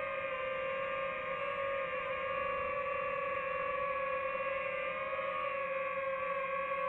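FPV quadcopter's electric motors and propellers whining steadily, a high multi-toned hum that holds nearly one pitch with slight wavers, heard close from the drone's own camera.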